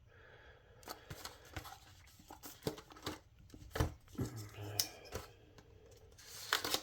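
Knife box and packaging being handled and opened: scattered light clicks, taps and short rustles.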